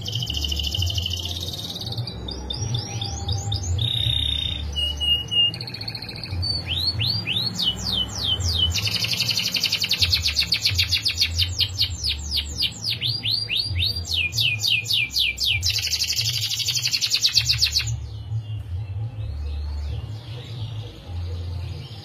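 Domestic canary singing a long rolling song: fast trills of rapidly repeated notes, broken by a few short held whistles. The rolls stop about 18 seconds in, giving way to softer, sparser notes, and a steady low rumble runs underneath.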